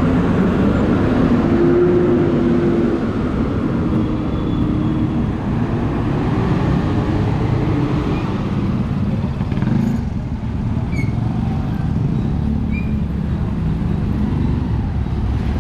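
Street traffic: engines of passing vehicles running close by, loudest in the first few seconds, with a few short high chirps later on.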